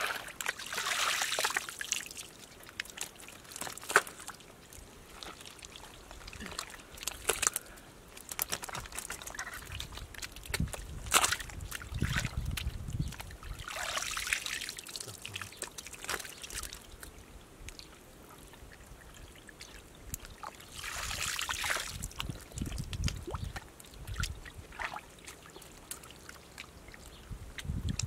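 Muddy water pouring and dribbling out of a perforated plastic basket scooped through shallow mud, in a few bursts of a second or two: right away, about halfway through, and again about three quarters in. Scattered splashes and sharp clicks from the basket and mud come in between.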